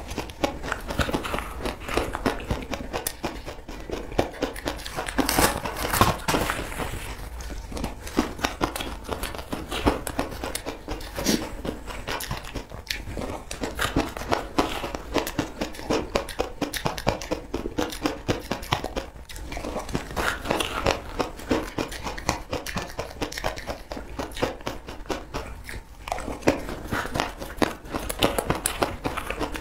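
Close-up chewing and crunching of frozen crushed ice, a dense, continuous run of crackles and crunches, with a metal spoon scooping the ice from the bowl.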